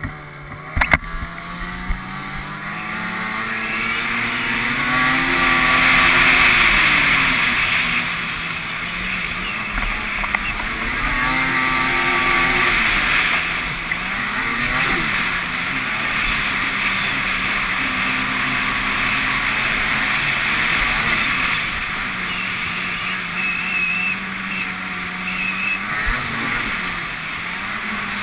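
Ski-Doo snowmobile engine running under changing throttle, its pitch rising and falling over and over as it speeds up and eases off. Two sharp knocks come right at the start.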